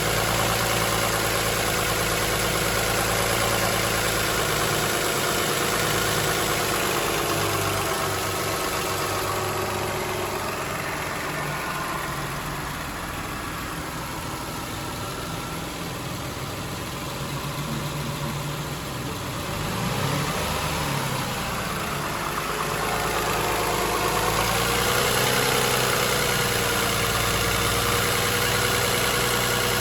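2007 Toyota Highlander's 3MZ-FE V6 idling with a rattling, knocking noise that the owner suspects may be an exhaust leak. The sound grows duller and a little quieter for about ten seconds in the middle, then comes back.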